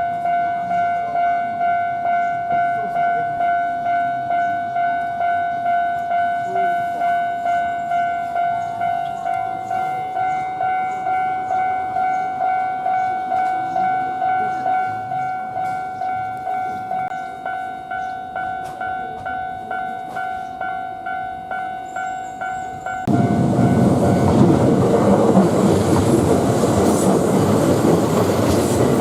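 Japanese level-crossing warning bell ringing, a steady kan-kan tone at a little over two strokes a second. About 23 seconds in, a Kintetsu electric train passes over the crossing, loud and sudden, and its running noise covers the bell.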